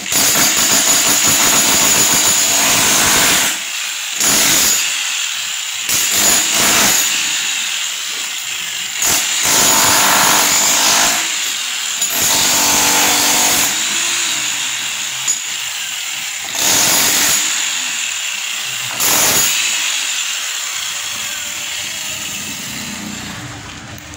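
A handheld power tool cutting or grinding into building material, running in repeated loud bursts with short pauses between them.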